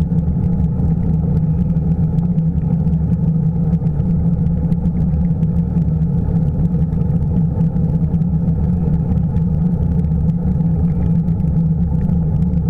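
Steady low rumble of wind buffeting the microphone and tyre noise from a bicycle rolling along a smooth paved bike path, heard through a camera riding on the bike.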